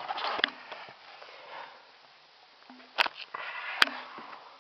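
Rustling handling noise, then two sharp clicks a little under a second apart, plastic-like, from things being handled in a car interior.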